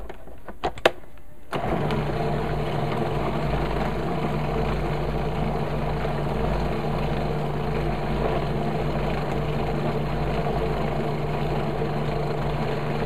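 Food processor motor starting about a second and a half in and running steadily as it whips frozen bananas into soft-serve banana ice cream, in the last seconds before it is done. The motor cuts off abruptly at the end, with a couple of light clicks just before it starts.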